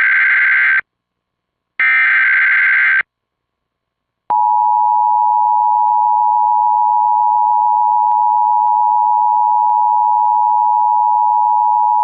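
Emergency Alert System tones: the end of one SAME header data burst and a second whole burst, each a short harsh digital screech about a second long. About four seconds in, the EAS attention signal starts, a steady two-tone beep that holds on.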